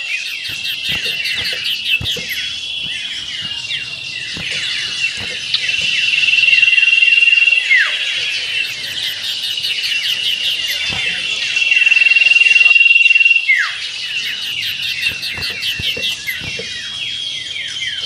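Common ioras (cipoh) singing in a dense, overlapping contest-style chorus. The song mixes long steady whistles, rapid chattering trills and sharp downward-swooping calls, in the 'meriwit ngetir' style. A louder stretch of the same pattern comes round about every six seconds.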